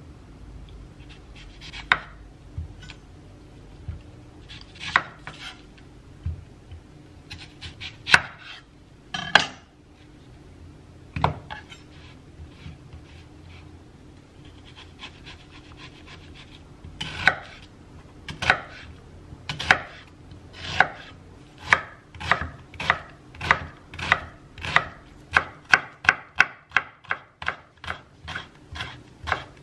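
A chef's knife cutting an onion on a wooden chopping board: a few separate cuts at first, then steady chopping that speeds up to a few strokes a second near the end as the onion is diced.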